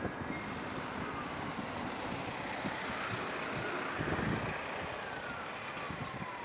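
Norfolk Southern freight train's diesel locomotives approaching, a steady rumble with a few faint falling whines.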